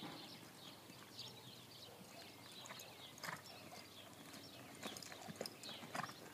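Faint hoofbeats of a ridden paint horse loping on soft arena dirt, with a few sharper strikes in the second half.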